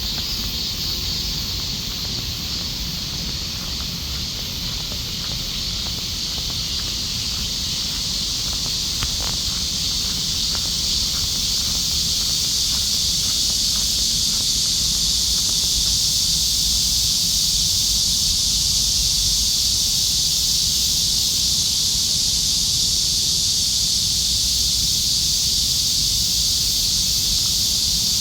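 A chorus of cicadas buzzing steadily in summer, a continuous high drone that swells louder about a third of the way through, over a faint low rumble.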